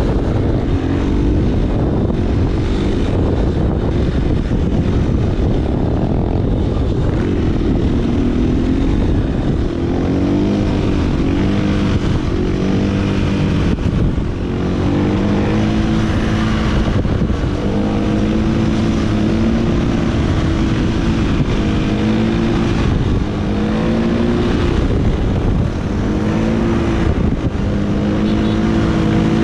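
Dirt bike engine under way, revving up and shifting again and again, so its pitch climbs and falls back every second or two, over a heavy low rumble.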